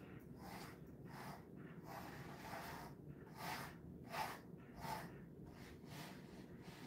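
A grooming brush drawn through a Jindo dog's coat in quick, repeated strokes, a soft brushing hiss about twice a second. A steady low hum runs underneath.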